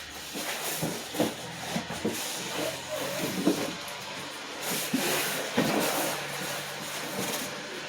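Packing paper rustling and rubbing in irregular small scrapes and crinkles as a wrapped item is handled.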